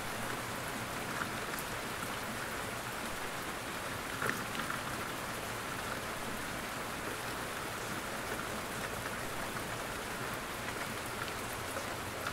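Steady, even rain-like hiss with scattered faint ticks, one slightly louder about four seconds in.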